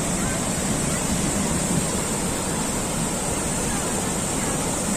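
Waterfall water rushing, a loud, steady, unbroken noise.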